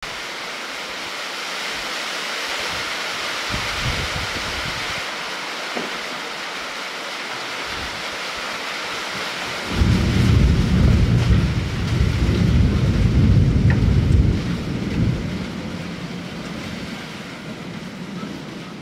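Steady rain hiss, then about ten seconds in a thunderclap breaks suddenly into a loud low rumble that lasts about five seconds and slowly fades.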